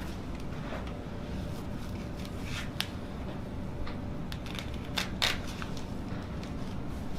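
A few short, sharp clicks and cracks with light rustling during a chiropractic adjustment: one click about three seconds in, and two louder ones close together about five seconds in, over a steady low hum.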